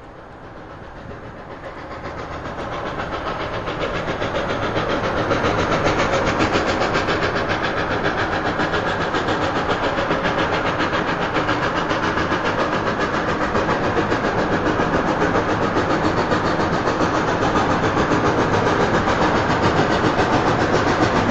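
Reading & Northern 2102, a 4-8-4 steam locomotive, working hard up a grade with a heavy freight train: a rapid, steady chuffing of exhaust beats. It grows louder over the first few seconds as the engine approaches, then holds loud.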